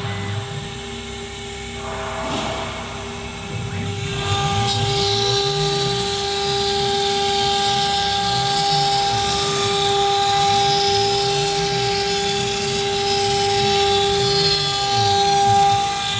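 CNC wood router running: the spindle gives a steady high whine while the bit cuts, and the axis drive motors rise and fall in pitch as the machine moves. The cutting grows louder and hissier about four seconds in.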